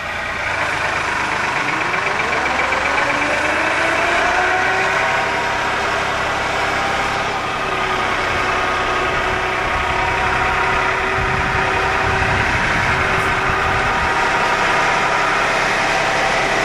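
Vehicle engine running as it drives, heard from inside the vehicle. Its pitch rises over the first few seconds as it speeds up, then holds steady.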